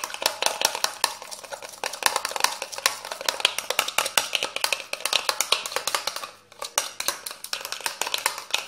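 Spoon stirring a thickening homemade slime in a small bowl, giving rapid clinks and scrapes against the bowl with a brief pause about six and a half seconds in. The slime has stiffened enough that the spoon turns with difficulty.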